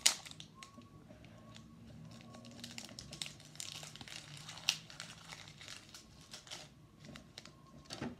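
Foil Pokémon booster pack wrapper being torn open and crinkled: a sharp rip right at the start, then irregular crinkling and crackling, with one louder crackle about four and a half seconds in.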